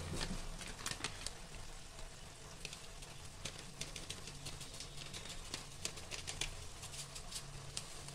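Soya chunks and shredded cabbage frying in a wok, a steady sizzle with irregular small crackles and pops.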